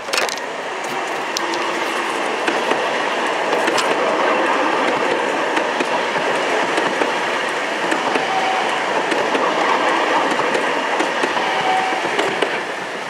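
Alstom Citadis Dualis tram-train (SNCF class U 53500) running past close by: a steady rolling rumble of wheels on rail with scattered clicks.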